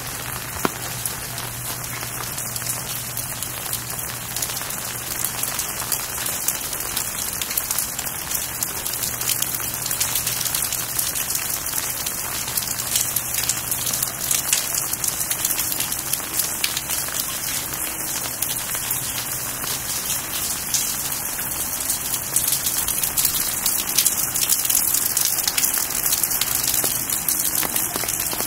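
Steady rain falling, a dense hiss made of many fine drop ticks, growing slightly louder toward the end.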